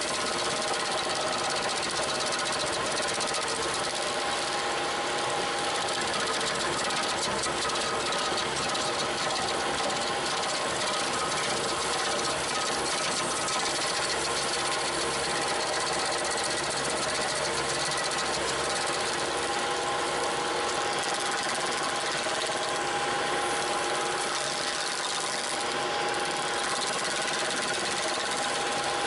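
Bobcat T300 track loader's diesel engine running steadily at high revs, driving a Bobcat SG60 stump grinder attachment, with a dense grinding noise over the engine's hum.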